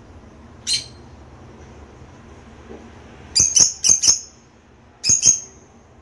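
Lovebirds giving short, sharp, high-pitched chirping squawks: one call, then a quick run of four, then two more near the end.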